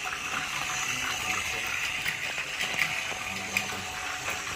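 Battery-powered Plarail Talking Thomas toy train running on plastic track: a steady whirring hiss from its small motor and wheels.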